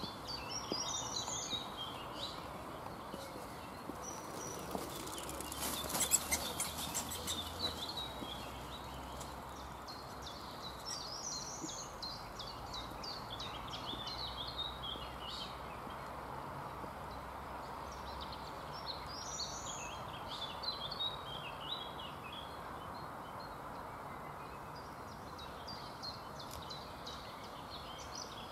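Songbirds chirping and singing in short bursts, several times over, against a steady outdoor background hiss. A brief run of sharp clicks comes about six seconds in.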